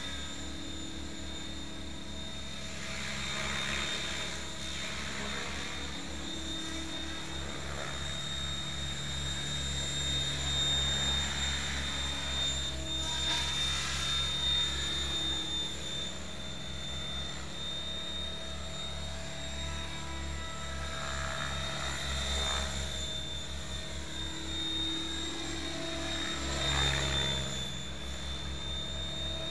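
Electric Logo 600 RC helicopter flying, its rotor noise and high motor-and-gear whine steady in pitch, swelling and fading several times as it passes close by.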